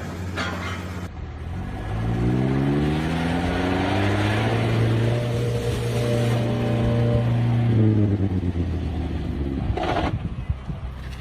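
A vehicle engine revving up for about two seconds, held at high revs for a few seconds, then dropping back.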